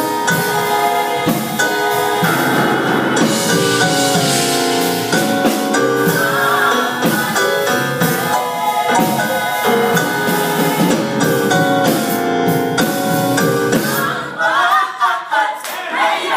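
Gospel choir singing in parts with drum backing. Near the end the low backing drops away, leaving voices sliding up and down in pitch.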